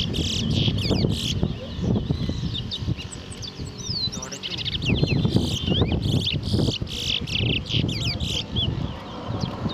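Caged towa-towa seed finch singing in short bursts of quick whistled notes that slide up and down, over low background chatter.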